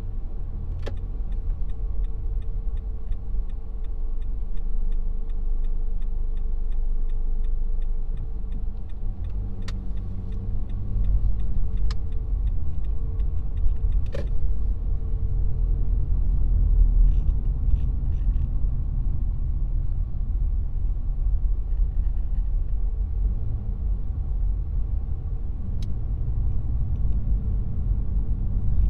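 Car driving: a steady low engine and road rumble. A light, evenly spaced ticking runs for about the first ten seconds, and a few sharp clicks come later.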